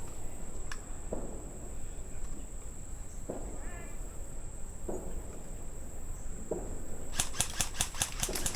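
Slow, soft footsteps, then about seven seconds in a rapid string of sharp clacks at roughly seven a second: an HPA airsoft rifle firing in quick succession. A thin steady high whine runs under it all.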